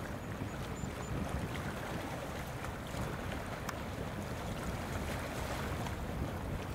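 Steady low rumble of wind buffeting the microphone, with an even outdoor hiss behind it.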